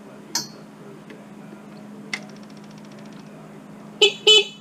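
A couple of faint clicks, then near the end two short, loud beeps from the IHI 9VX-3 mini excavator's electric horn, the second a little longer.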